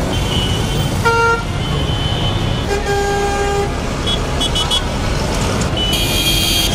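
Road traffic with several vehicle horns honking over the engine rumble: a short horn a little after a second in, a longer lower-pitched horn around three seconds, then a quick run of short high beeps and more honking near the end.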